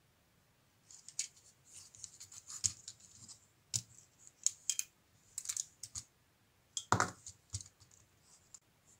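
Hard plastic LEGO Technic parts of a paddle wheel clicking and scraping as they are handled and turned by hand: a string of irregular clicks and short scratchy rustles starting about a second in, with the loudest knock about seven seconds in.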